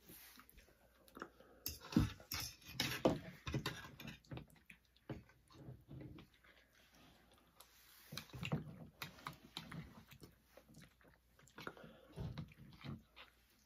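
Metal forks clicking and scraping in plastic bowls, with chewing, as two people eat spaghetti: an irregular run of small clicks and scrapes.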